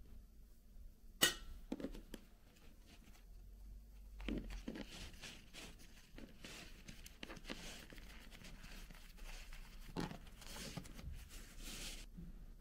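Handling noise: a sharp knock about a second in, then rustling and crinkling on and off, as something is worked by hand.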